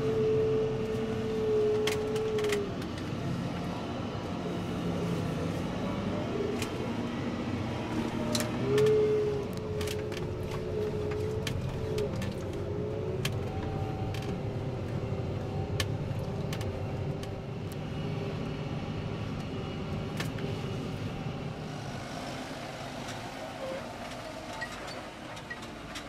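Fendt 720 Vario tractor's six-cylinder diesel engine running steadily under ploughing load, heard from inside the cab. A high steady whine sounds twice, at the start and again about nine seconds in, each for a few seconds, with a few sharp clicks scattered through, and the sound grows a little quieter near the end.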